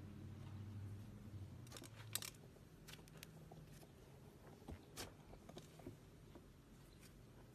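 Fluffy slime being poked and pressed, giving faint scattered clicks and small crackles, with a sharper cluster about two seconds in. A low hum fades out around the same time.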